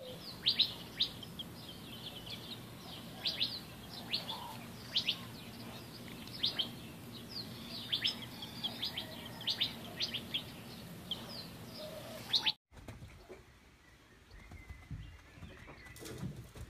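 A chick peeping over and over: short, high-pitched calls that slide downward in pitch, one or two a second and sometimes in quick pairs. It breaks off suddenly about twelve and a half seconds in.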